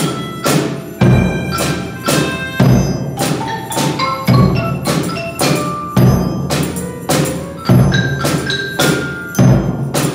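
A children's percussion band playing a simple tune: a bass drum struck on a steady beat, with hand bells, tambourines, a snare drum and a xylophone, and keyboard harmonicas holding short melody notes.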